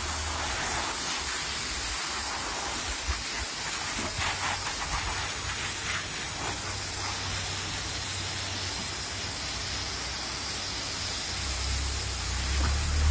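Garden hose spraying a steady jet of water onto a dog and the grass around it, a continuous rush of water. A low rumble swells near the end.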